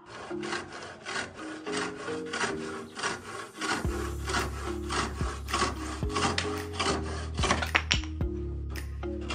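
A small block of red hardwood being cut by hand with a wooden frame saw: quick, regular back-and-forth strokes of the blade rasping through the wood.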